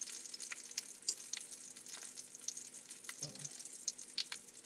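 Faint, irregular crackling sizzle of food frying in a pan, with a faint steady hum beneath.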